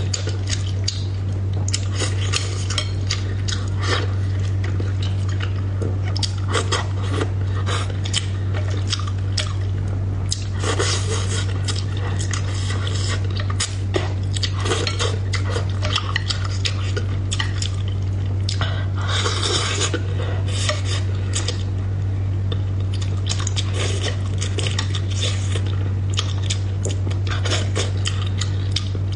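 Wooden chopsticks clicking and scraping against a ceramic bowl of fish in sauce, mixed with close-miked chewing and mouth sounds, over a steady low hum.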